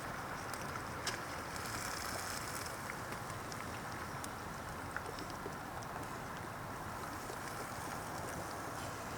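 Wood campfire burning with a steady hiss and a few scattered small pops and crackles.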